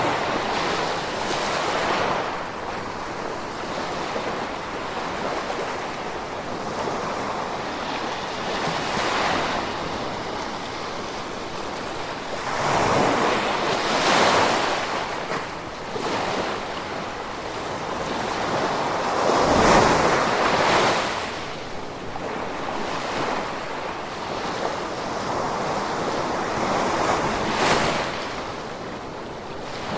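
Gentle ocean waves washing onto the shore over a steady hiss of water, with a louder surge every several seconds as each wave breaks; the biggest comes about two-thirds of the way through.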